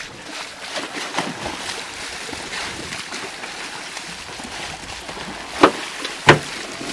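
A large halibut thrashing at the surface beside a boat, the water splashing steadily, with two sharp slaps less than a second apart near the end.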